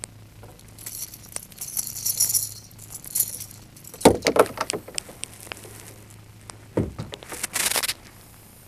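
Metal fishing pliers and their coiled lanyard clinking and jangling as a hook is worked out of a largemouth bass's mouth. This is followed by a couple of sharp knocks against the plastic kayak hull, about four and seven seconds in, and scattered clicks.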